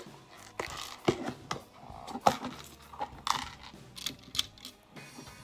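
Small plastic LEGO pieces clicking and clattering as a built model is handled, with a dozen or so sharp, irregular clicks.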